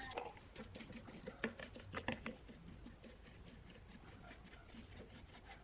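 Faint scattered light clicks and taps, several together in the first half, then sparser.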